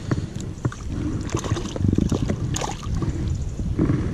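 Water splashing and trickling close to the microphone, with scattered small clicks and knocks, over a low rumble of wind.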